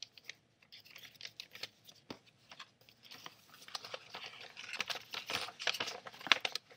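Paper rustling and crackling in the hands as a folded letter and a large paper envelope are handled, a dense run of quick crackles that grows louder toward the end.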